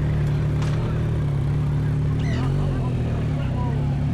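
Motorcycle engine idling steadily. About two seconds in comes a short, high-pitched, sweeping call, followed by a few fainter ones.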